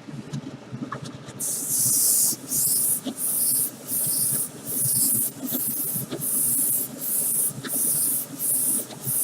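Paint being sprayed onto a model car body in short bursts of hiss, about a dozen of them roughly 0.7 s apart, starting about a second and a half in, over a faint low rumble.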